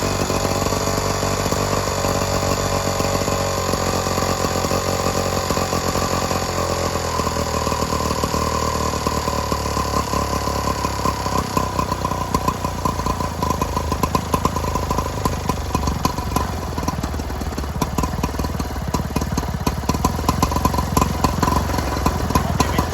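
Small 1970s Aspera two-stroke engine running on its own after a first-pull start, a steady buzzing note that turns more uneven and choppy in the second half.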